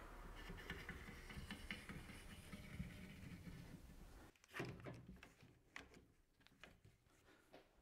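Near silence: faint workshop room tone, with a few soft knocks about halfway through as wooden parts are handled.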